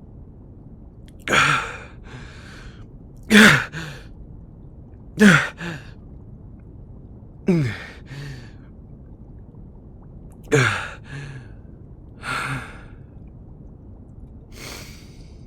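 A man breathing heavily: about seven pained sighs and gasps, roughly two seconds apart, several falling in pitch like groans, as he catches his breath after a painful shock.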